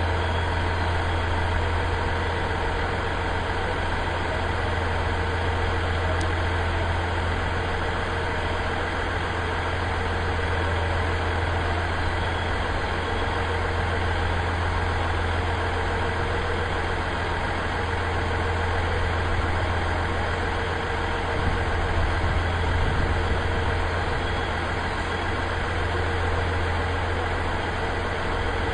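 Steady low mechanical hum: a deep drone with several fixed tones above it, unchanging, slightly louder for a couple of seconds about three quarters of the way through.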